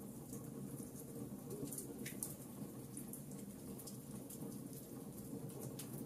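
Burning logs in a fireplace crackling and popping irregularly, over a steady low rumble. One louder pop about two seconds in.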